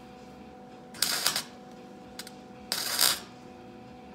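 MIG welder laying two short tack welds on the steel quarter panel and rocker seam, each a crackling burst of about half a second, one about a second in and one near three seconds in.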